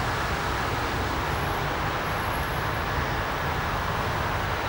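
Steady roadway traffic noise: a constant rushing hiss over a low rumble.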